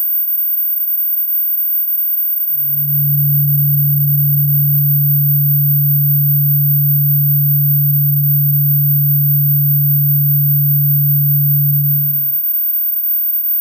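Electronically generated high-frequency dog-deterrent tone: a steady, very high-pitched whine held throughout. A steady low hum joins it about two and a half seconds in and stops about twelve seconds in.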